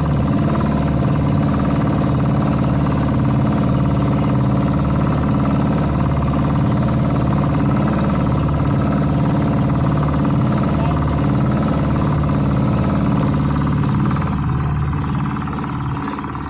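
Fishing boat's engine running steadily with a loud, even drone, easing off and getting quieter near the end.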